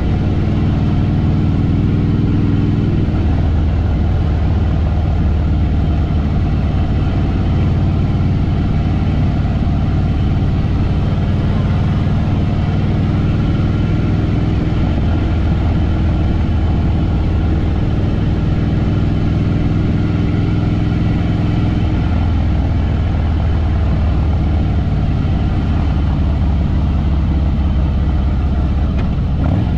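Harley-Davidson Fat Boy Lo V-twin engine running under way, a steady low engine note that shifts in pitch a few times as the throttle and gears change.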